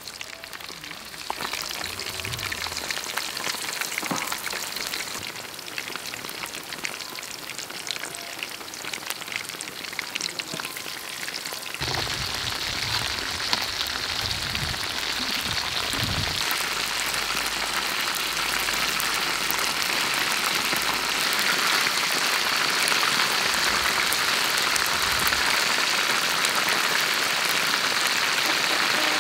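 Battered chicken drumsticks deep-frying in a wok of hot oil: a steady bubbling, crackling sizzle that grows louder about twelve seconds in.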